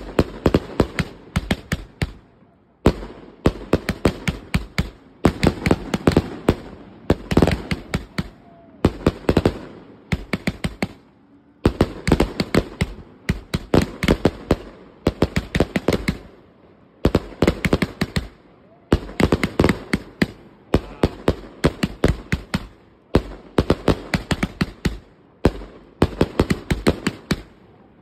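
100-shot consumer firework cake firing: rapid volleys of sharp bangs and cracks, each run lasting a second or two, with brief pauses between runs.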